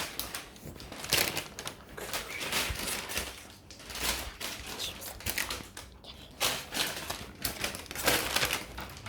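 Plastic shopping bag and packaging rustling and crinkling as squishy toys are handled and packed, in irregular bursts with small clicks.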